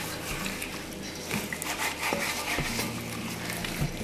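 Pork belly pieces being turned and rubbed by hand in a wet marinade in a stainless steel bowl: soft squelching and rubbing, with a few light clicks of a metal spoon against the bowl.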